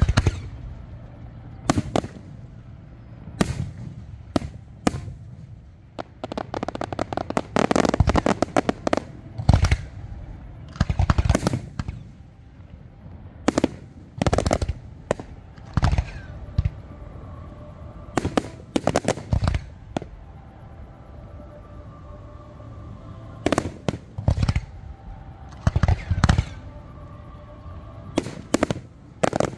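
Aerial fireworks shells bursting in an irregular string of sharp bangs, with several quick runs of rapid crackling reports.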